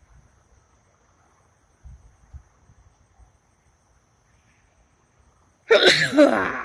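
A woman sneezes once, loudly, about six seconds in.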